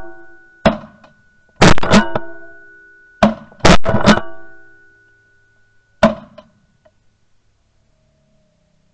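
Background music of strummed guitar: about six sharp, loud strums, each ringing out as a sustained chord, the last about six seconds in.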